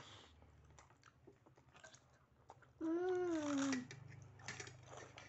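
Faint chewing and biting, with a rengginang rice cracker bitten, then about three seconds in a loud, closed-mouth 'mmm' of relish about a second long, falling in pitch.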